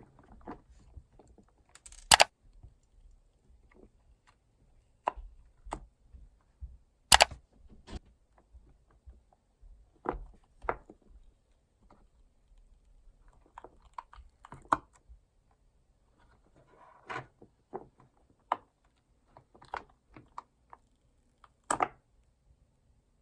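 Scattered clicks and light taps of small hard objects being handled and set down, with soft handling rustles between; the sharpest clicks come about two, seven and twenty-two seconds in.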